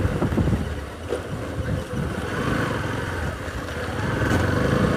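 Motorcycle engine running at low road speed along with road and wind noise, easing off about a second in and then picking up again.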